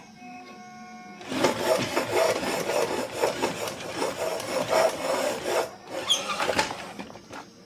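A brief steady hum, then several seconds of rough rasping and scraping, like filing or sanding, that tails off near the end.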